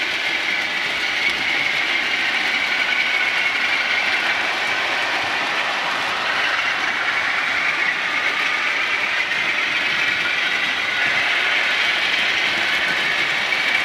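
Model railway train running along the track: a steady mechanical running noise of the small locomotive's motor and wheels on the rails.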